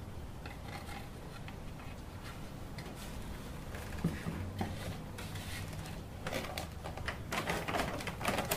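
Hive-box pieces being handled and fitted together on a workbench: a couple of light knocks about four seconds in as parts are set down, then scraping and rubbing near the end as the side and end pieces are pushed together. A faint steady low hum runs underneath.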